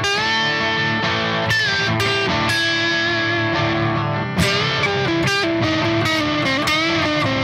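Les Paul-style electric guitar improvising a lead line in the A minor pentatonic scale, held notes with string bends and vibrato, over a backing track of strummed chords.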